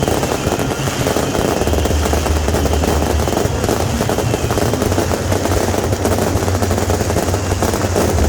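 Firecrackers and beehive rockets going off in a dense, unbroken rapid-fire crackle, over a steady low rumble.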